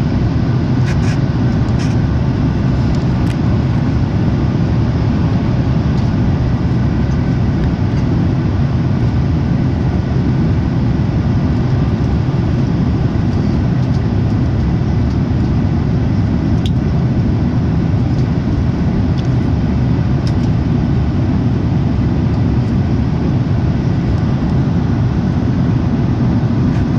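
Jet airliner cabin noise during the climb after takeoff: the steady, deep rumble of the engines and rushing air heard inside the passenger cabin, with a faint steady whine above it.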